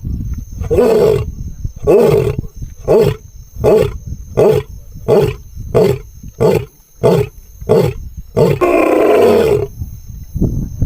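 Lion roaring in a bout: two long roars, then a run of about ten short grunting roars that come quicker and shorter, and another long roar near the end.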